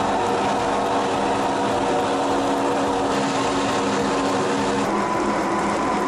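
Electric grape crusher-destemmer running steadily, its stainless-steel screw auger feeding whole grape clusters through to be destemmed and crushed. A steady machine hum with several held tones, which shift about five seconds in.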